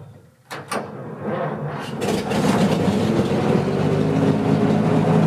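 A couple of clicks, then the big gasoline engine of a 1965 American LaFrance fire truck cranks and catches about two seconds in. It settles into a steady, even idle (it "purrs"), heard loud from the cab with the engine close behind the seat.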